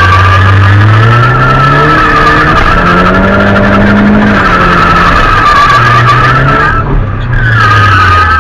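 Rear tyres squealing continuously through a drift, the squeal wavering in pitch and breaking off briefly about seven seconds in before picking up again. Underneath, the Nissan 200SX's turbocharged CA18DET 1.8-litre four-cylinder engine is held at high revs, its pitch climbing over the first two seconds and again a little later.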